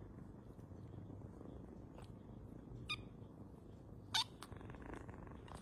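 Cat purring steadily, with two short high-pitched kitten mews about three and four seconds in; the second is the loudest and falls in pitch.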